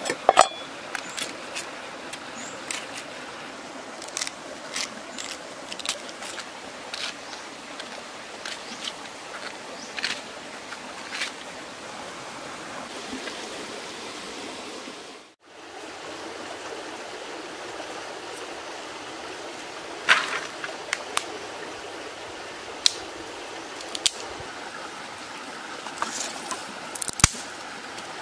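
Steady rush of a stream under scattered sharp clicks and snaps of dry sticks and twigs being handled and laid down. The background drops out briefly about halfway through.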